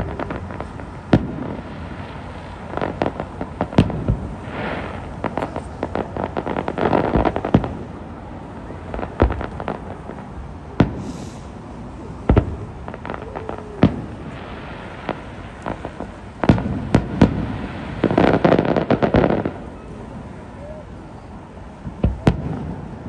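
Aerial fireworks going off: a string of sharp single booms from bursting shells, with several spells of dense crackling, the longest near the end.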